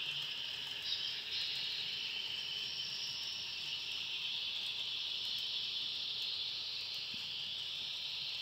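Model train running on its track: a steady high-pitched whir from the small locomotive's motor and the wheels rolling on the rails.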